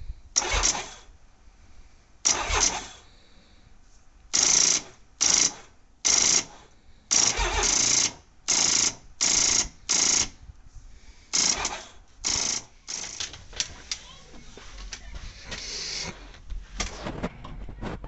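Honda Gold Wing 1500's starter being pressed about a dozen times in short bursts, each under a second, without the engine catching: the battery is too weak after five months of winter storage.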